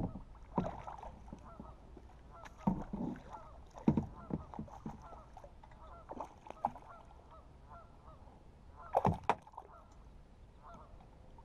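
Geese honking over and over, short calls one after another. Over them come a few sudden splashes and knocks, the loudest about nine seconds in, as a hooked largemouth bass thrashes at the surface beside the kayak.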